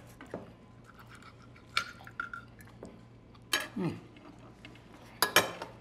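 Knives and forks clinking and scraping on china plates as food is cut and eaten: a few separate clinks with quiet between them, one ringing briefly about two seconds in and the sharpest near the end.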